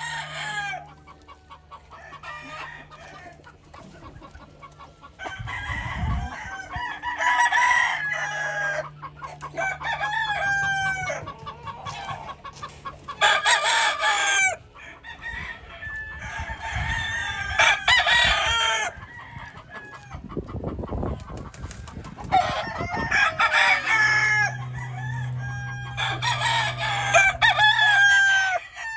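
Several roosters crowing, one after another, about half a dozen long crows spread a few seconds apart.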